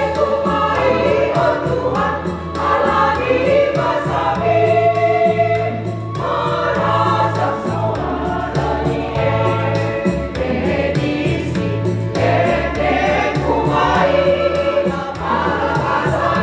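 Women's church choir singing a Batak hymn in parts, over sustained low bass notes of an accompaniment.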